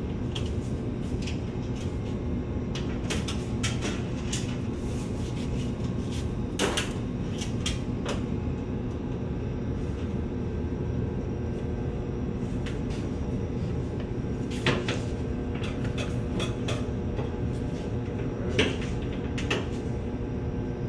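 Sheet-metal furnace access covers being handled and fitted back on: scattered knocks and clunks of the metal panels, with the loudest a little before the middle and near the end, over a steady low hum.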